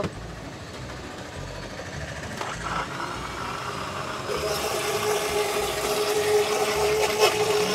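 Electric mixer-grinder blending a milkshake in its plastic jar, the motor running steadily and growing louder, with a steady whine and a brighter hiss from about four and a half seconds in.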